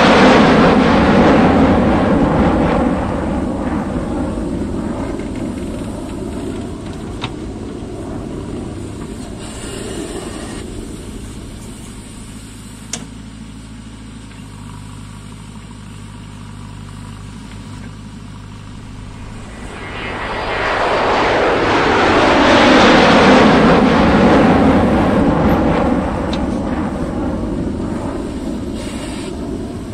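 JCB 3DX backhoe loader's diesel engine running while it digs and loads mud. It is loud at the start, eases off, then swells loud again about two-thirds of the way through before settling back.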